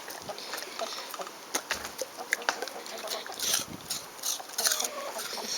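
Large Newfoundland dog chewing a piece of apple with an open, slobbery mouth: a run of wet smacks, crunches and slurps, busiest in the second half.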